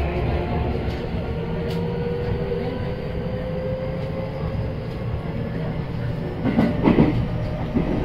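Onboard running sound of a JR West 223-0 series electric train with Toshiba GTO-VVVF traction: steady wheel-on-rail rumble with a faint motor tone. A brief louder clatter of the wheels comes about six and a half seconds in.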